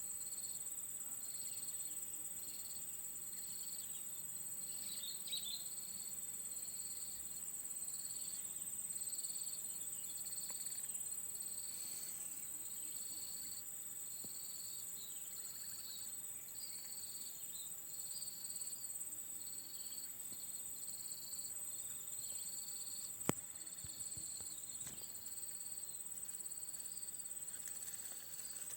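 Insect-like calling from inside an oil palm trunk: a steady high-pitched trill with a lower chirp repeating about once or twice a second. A single sharp click about three quarters of the way through.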